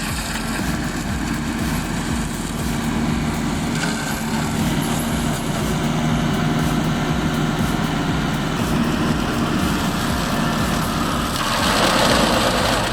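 Engine of a heavy forestry machine running steadily under load, with a steady low drone. It grows louder and harsher about a second before the end.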